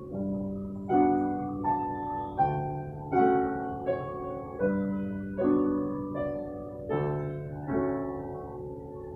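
Background piano music: a calm piece of struck notes and chords, each fading before the next comes in about every second.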